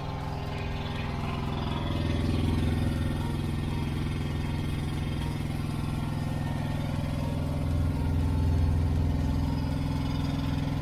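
Semi truck's diesel engine running steadily at idle, swelling a little louder twice.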